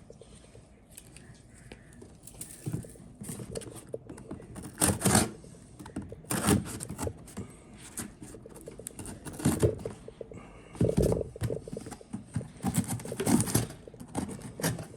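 Package being opened by hand: paper and cardboard wrapping tearing and crinkling in irregular bursts, several louder rips spread through.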